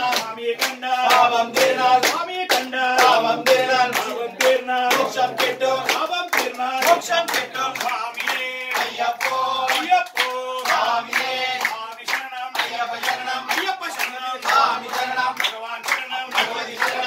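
A group of male voices singing an Ayyappa bhajan, with hands clapping in steady time, about three claps a second.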